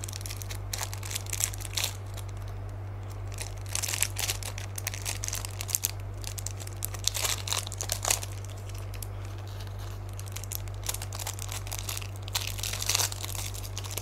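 Thin plastic packaging crinkling and rustling in the hands as a detox foot pad is unwrapped, in irregular spells of crackling over a steady low hum.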